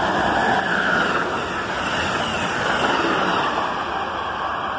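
Amtrak electric passenger train passing through the station at speed: a steady rush of wheels on rail and air, easing a little in the last second or so as it goes away.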